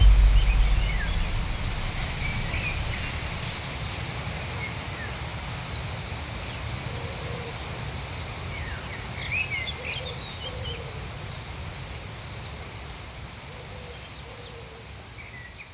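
Outdoor ambience of small birds chirping and calling, with a couple of fast, high ticking trills, over a low rumble. It fades out gradually. A deep low boom sounds in the first second.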